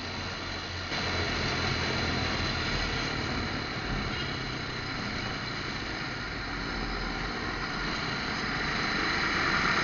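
Motorcycle engine running steadily under way, mixed with road and wind noise and the surrounding traffic, growing louder near the end.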